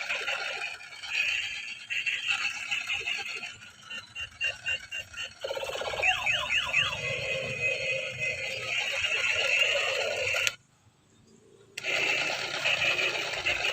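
Electronic toy-gun sound effects: beeping, warbling tones with a quick run of pulses about four seconds in and a few laser-like zaps around six seconds. The sound cuts out abruptly for about a second, then resumes.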